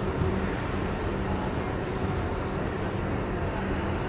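Paint spray gun hissing steadily over the hum of the air compressor feeding it, as a car body is sprayed.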